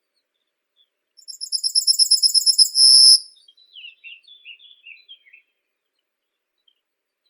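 A songbird singing: a fast, high trill of rapid repeated notes, about ten a second, ending in a brief held note, followed by a short jumble of lower twittering notes.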